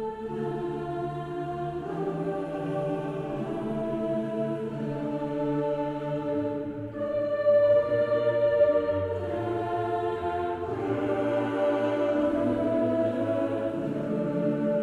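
Background music of sustained choir-like voices holding slow chords that change every couple of seconds.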